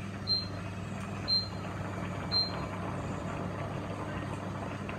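Touch-control cooker hob beeping three times, short high beeps about a second apart, as its heat is turned down on a pot of boiling rice. A steady low hum runs underneath.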